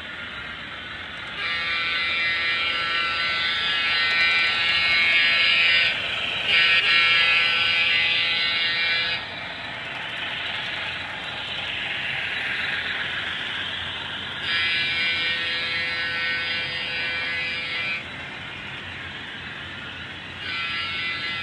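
Sound decoder of a model Pennsylvania Railroad Centipede diesel locomotive playing its diesel engine sound, with little low end, under several steady horn blasts: two long ones starting about a second and a half in, another long one in the second half, and a shorter one near the end.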